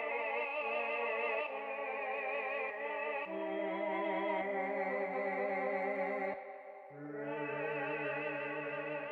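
Background music: a slow melody of held notes with a strong, even vibrato in an operatic or theremin-like style, changing pitch about every second. It dips briefly about two-thirds of the way through and then resumes on a lower note.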